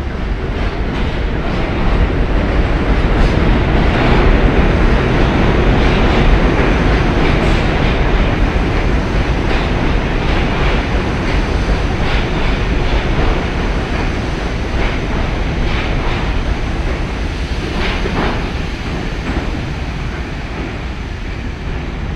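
R62A subway train departing and rolling past along the platform: a steady rumble of wheels on rail with scattered clacks over the rail joints. The noise is loudest about four to six seconds in and slowly fades as the last cars go by.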